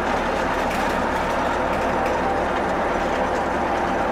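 Fortschritt E303 self-propelled mower's diesel engine running steadily under way, heard from inside the cab along with the machine's mechanical noise.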